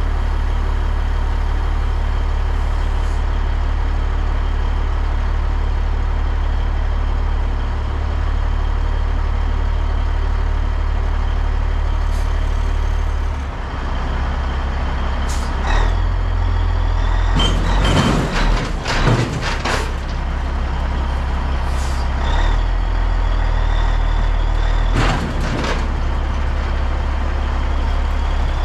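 Heavy diesel truck engine idling, its low hum shifting about halfway through. Several short bursts of air hiss, typical of truck air brakes, come in the second half.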